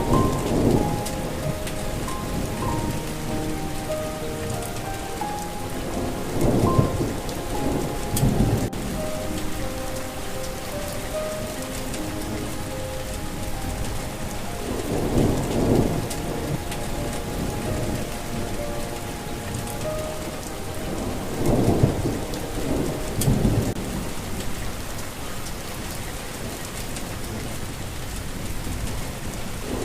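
Steady rain with rolling thunder that swells up four times. A soft melody plays faintly over it, its notes mostly in the first half.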